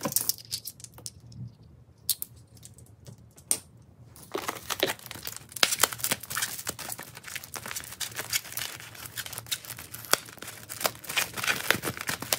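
Scissors cutting and tearing open taped white foam wrapping, with plastic-wrap crinkling: a few scattered crackles at first, then dense crinkling from about four seconds in.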